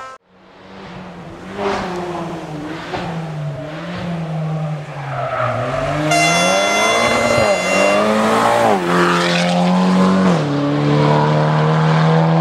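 Rally car engine revving hard, its pitch climbing and falling several times through gear changes. A steady high whine joins it for a couple of seconds near the middle.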